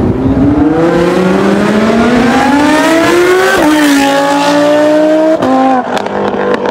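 Lamborghini Huracán's V10 accelerating hard past, its pitch climbing steadily for about three and a half seconds, then falling sharply at an upshift and climbing again. A second drop in pitch comes near the end.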